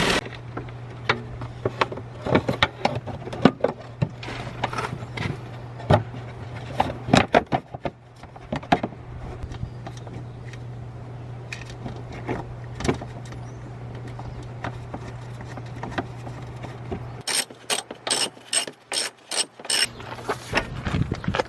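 Hand tools working on a car's engine: scattered metallic clicks and knocks over a steady low hum, then a quick run of sharp clicks near the end.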